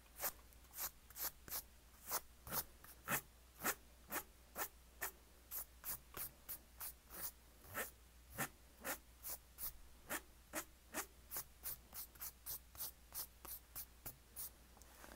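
Drawing strokes scratching across paper, a steady back-and-forth of short strokes, about three a second.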